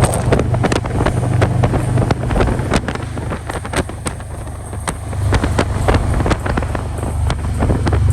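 Motorcycle engine running steadily at road speed, its low drone swelling and easing a little, with heavy wind buffeting the microphone.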